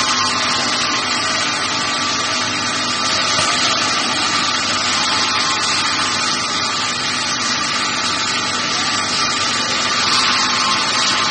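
Automated chemical-barrel cleaning line running: a loud, steady machine hiss with a faint even hum under it.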